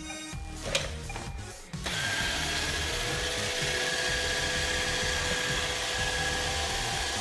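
iRobot Roomba robot vacuum starting a cleaning run: a few short electronic tones and a click. About two seconds in, its vacuum motor and brushes start up and run with a steady whine.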